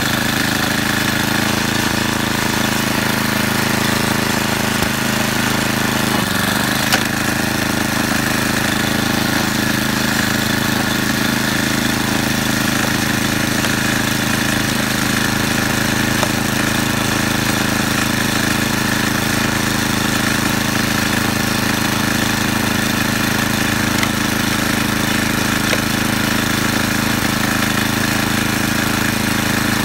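Gasoline snowblower engine running steadily while it clears a path through deep, wet snow.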